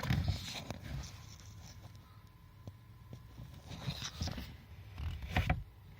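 Faint handling noise under a car's dashboard: rustling and scraping, with a few small clicks. The louder rustles come about four and five and a half seconds in.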